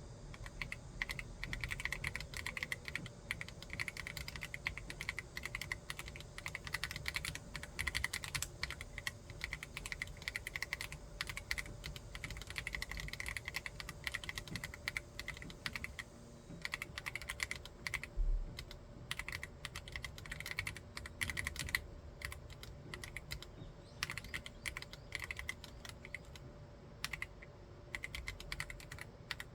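Continuous fast typing on a Libra mini 40% mechanical keyboard with an acrylic case and MMD Holy Panda tactile switches, keystroke after keystroke. One heavier thud comes about two-thirds of the way in.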